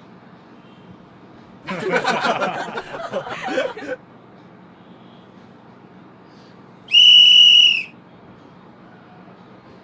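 A woman giggling for about two seconds while grass tickles her nose. A few seconds later comes a single steady high-pitched whistle tone lasting about a second, the loudest sound here.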